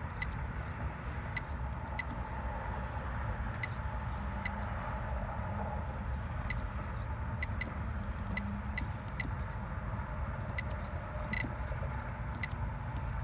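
Steady low rumble with about a dozen short, high beeps at uneven intervals.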